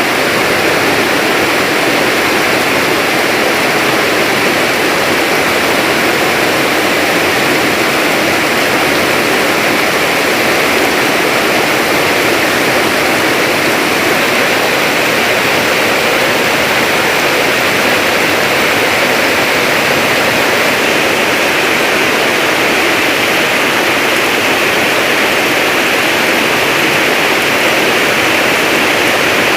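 Rain falling steadily and loudly, a constant rushing hiss with no breaks.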